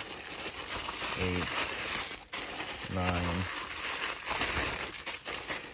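A plastic mailer bag and plastic-wrapped bundles of coffee filters crinkling and rustling as a hand rummages through them. Short voice-like sounds come about a second in and again about three seconds in.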